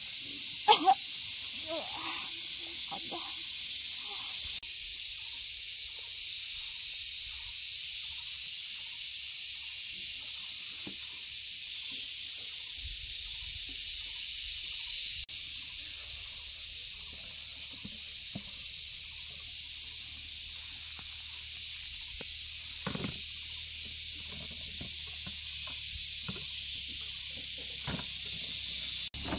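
A steady high-pitched drone of insects, like a cicada chorus, with two sharp knocks about a second in.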